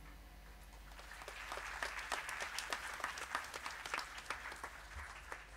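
Audience applause: scattered hand claps building up about a second in, then easing off near the end.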